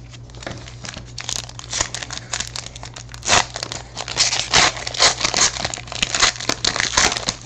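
Plastic wrapping on a box of football trading cards being crinkled and torn open, in irregular crackling bursts that grow denser about halfway through, over a steady low hum.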